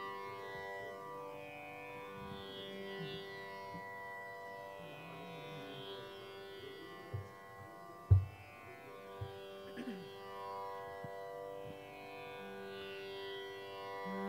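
Tanpura drone sounding steadily, its upper overtones swelling and fading every few seconds. A few soft knocks, and one sharper, louder thump about eight seconds in.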